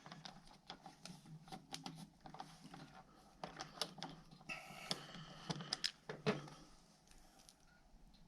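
Irregular small clicks and taps of hand work on motorcycle dash trim and fittings, with one sharper knock about six seconds in.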